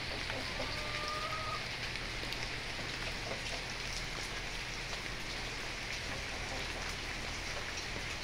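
Steady rain falling, with the light ticks of single drops close by.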